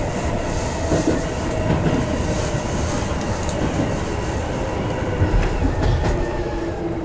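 Tobu Skytree Line electric train running on the rails: steady wheel rumble with clicking over the rail joints, and a faint whine that slides slowly lower.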